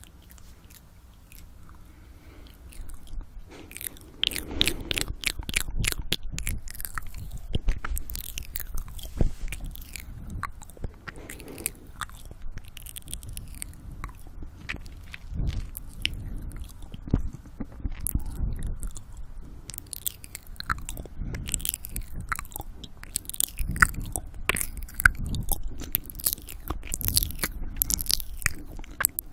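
Close-miked ASMR mouth sounds from a man: wet clicks, smacks and licking noises in the 'ear eating' style, with heavy breathing, irregular and dense after a quieter first few seconds.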